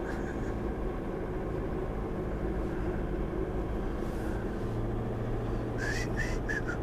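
Four-wheel-drive vehicle's engine and drivetrain running steadily while driving, heard from inside the cabin as an even low drone. A few faint, short, high chirps come in about six seconds in.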